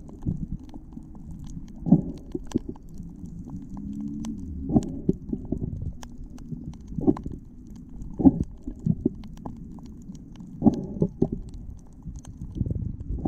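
Muffled underwater noise: low rumbling water movement with several dull thumps at irregular intervals.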